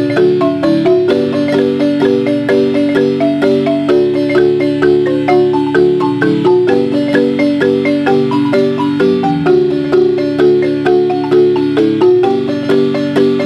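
Large wooden Guatemalan marimba played by three players with mallets, a son with a steady beat: low bass notes under a melody whose held notes are rolled with rapid repeated strokes.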